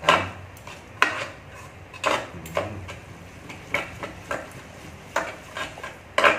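A metal fork and chopsticks stirring and tossing cooked instant noodles in a non-stick electric pot, knocking and scraping against the pot about once or twice a second. The loudest knocks come at the very start and near the end.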